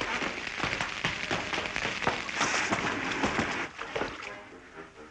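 Hissing, crackling sizzle of a smoking shoe being doused in a bucket of water, dying away about four seconds in. Faint music comes in near the end.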